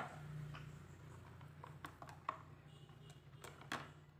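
A sharp click, then a few faint, scattered clicks and light taps of a glass jar and its lid being handled on a tabletop, over a low steady hum.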